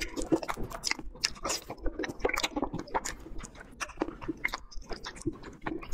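A person chewing a bite of tender pork knuckle, with many quick, irregular clicks from the mouth.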